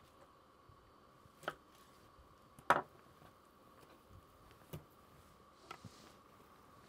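Boning knife working through a raw chicken leg quarter on a wooden butcher block: a few short, sharp clicks and knocks of the blade against the board, the loudest a little under a third of the way in, and the knife laid down on the wood. A faint steady hum of room tone lies underneath.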